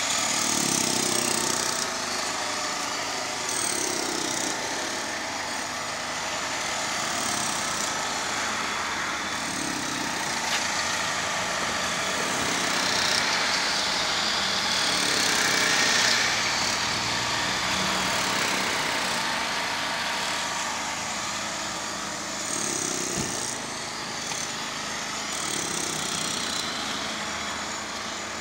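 Motor engines running in street noise, a steady rumble that swells and fades, loudest about a third and again just over half way through.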